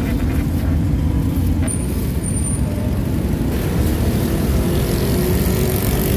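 Steady roadside traffic noise: a low rumble of passing motorbikes and cars, with one engine's note rising slightly in the second half.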